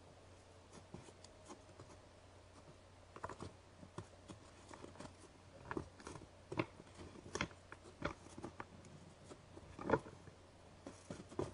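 Two white-tailed deer bucks sparring on snow: irregular clicks and knocks of antlers and hooves, growing busier, the loudest knock about ten seconds in. A faint steady low hum sits underneath.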